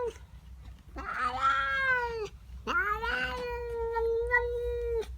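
Domestic cat caterwauling in two long, drawn-out yowls, the second longer, each rising and then held at a steady pitch: the territorial yowling of a cat upset by another cat in her garden.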